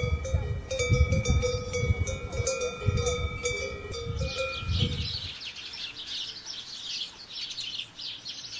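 Cowbells on grazing cattle clanking and ringing unevenly for about the first five seconds, then birds chirping and singing.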